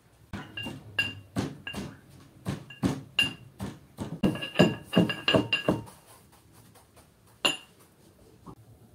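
Pestle pounding in a small mortar: a quick run of sharp, ringing clinks, about three to four a second, then a pause and one last hard strike near the end.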